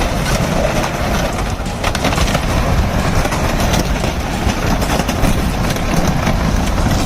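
Heavy machine's diesel engine running steadily with a deep rumble, with faint scattered clanks and rattles.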